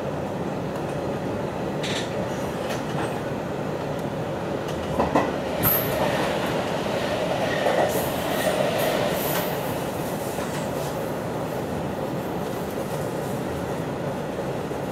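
Hanshin 1000 series electric train running, heard from inside the driver's cab, with wheels clicking over the rails. About five seconds in, an oncoming train passes alongside, bringing a few sharp clacks and a louder rush for several seconds.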